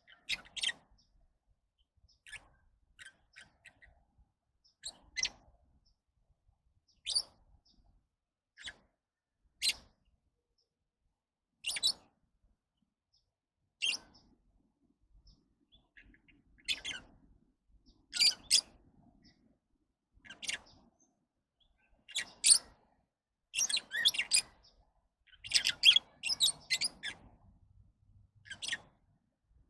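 Lovebirds giving short, high chirps, one every second or two, with quiet between, coming thicker and louder in the last third.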